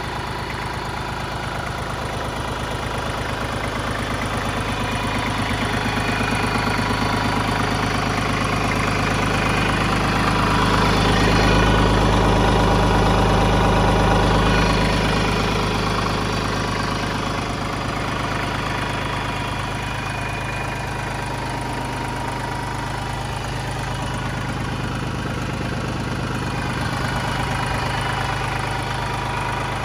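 Iseki TPC15 compact track tractor's small diesel engine idling steadily, louder for a few seconds midway through.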